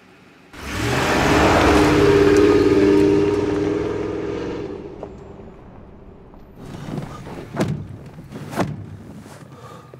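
Pickup truck pulling away and driving off on a gravel road: the engine runs hard and the tyres crunch on gravel. It starts suddenly and fades out after about four seconds. Then come a few short knocks and rustles.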